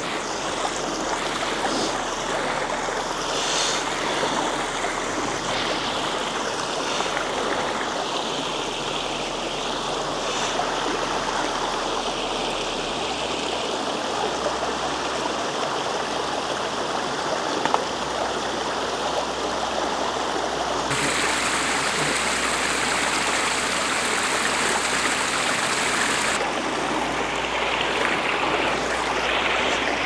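Creek water rushing steadily, a continuous wash of noise whose tone briefly turns brighter for a few seconds past the middle.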